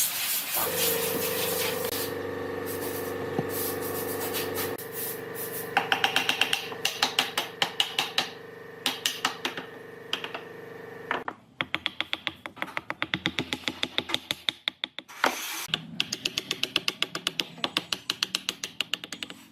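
A steady hum, then fast repeated short strokes of hand-tool work on wood, about four a second, continuing after the hum stops.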